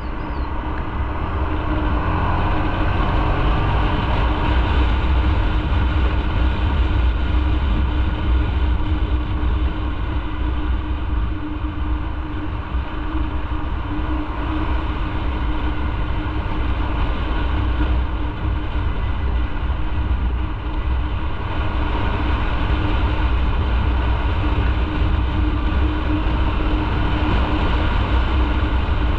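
Motorcycle running at a steady cruising speed, a constant engine drone mixed with heavy wind and road noise.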